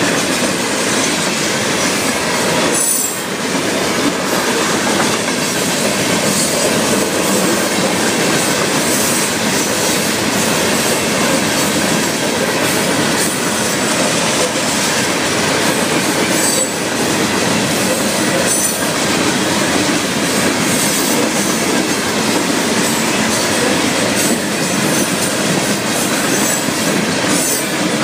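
Florida East Coast Railway freight cars rolling steadily past over a grade crossing: steel wheels running on the rails with clacking over the joints and some wheel squeal. Ballast hopper cars are followed by intermodal container well cars.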